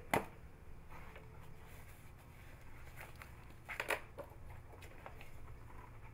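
Faint paper rustling and light taps as a cat paws at loose sheets of paper on a shelf, with a sharp click near the start and a short cluster of taps about four seconds in, over a low steady hum.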